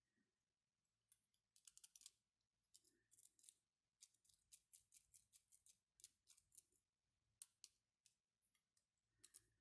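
3D-printed plastic gears and wheels of a mechanical counter being handled and fitted together by hand: faint, quick clicks and scrapes of plastic on plastic, some in rapid runs.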